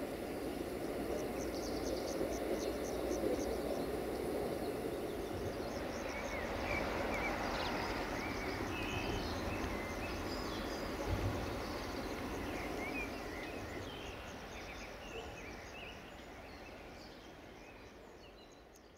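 Outdoor ambience: insects ticking fast and steadily and small birds chirping over a low steady noise, with a brief low thump about eleven seconds in. It all fades out near the end.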